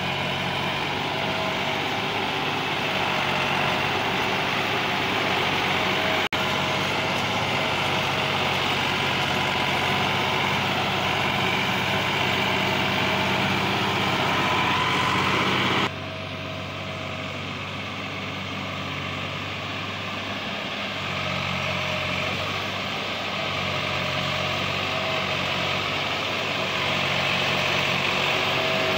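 Massey Ferguson 260 tractor's three-cylinder diesel engine running steadily under load as it pulls a heavily loaded sugarcane trolley. The sound breaks off briefly about six seconds in and drops in level about sixteen seconds in.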